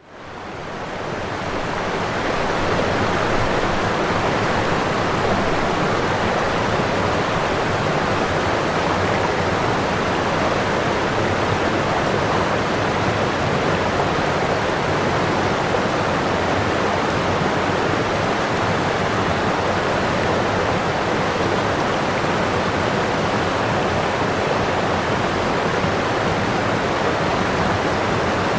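Waterfall rushing in a steady, even roar of falling water, fading in over the first couple of seconds.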